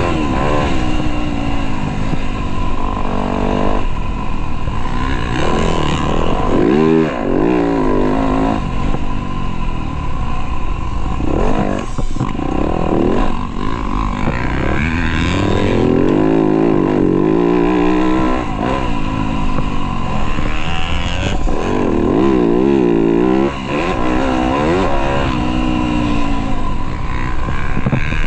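Motocross dirt bike engines revving hard and falling back again and again as the bikes accelerate and shift, more than one engine heard at times.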